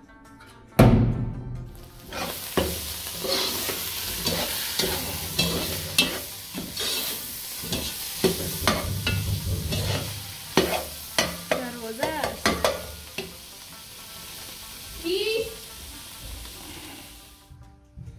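Food frying in a cooking pot, a steady sizzle with repeated knocks and scrapes of a spoon being stirred against the pot. It starts suddenly with a loud hit about a second in and cuts off just before the end.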